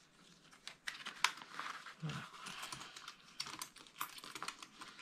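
Clear plastic zip pouches of a budget binder being handled: crinkling plastic and a run of small, irregular clicks.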